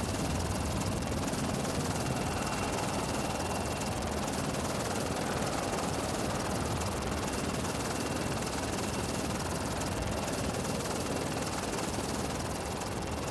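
Steady aircraft engine noise: an even rush with a faint, steady high whine, from the taxiing jet airliner or the helicopter flying over the airfield.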